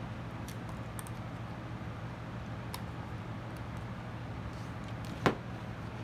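Light clicks and taps of a half-face respirator's plastic strap clips and body being handled on a workbench, with one sharp click about five seconds in, the loudest sound. A steady low hum runs underneath.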